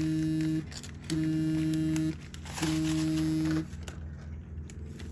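A steady buzz in one-second spells with half-second gaps: it stops just after the start, comes back twice, and stops for good a little past halfway through. A faint low hum remains.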